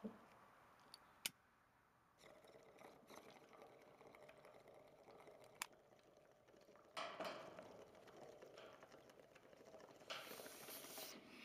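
Faint handling of a homemade plastic water-bottle bong: a few sharp clicks and soft rustling, with a louder crinkle of the thin plastic bottle near the end.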